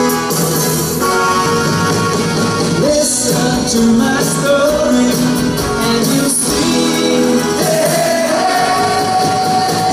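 Live pop band playing a song on guitars, bass, piano and drums, with a man singing lead.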